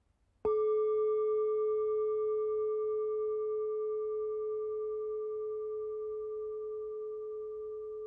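Singing bowl struck once about half a second in, ringing with one clear tone and fainter higher overtones that slowly fade.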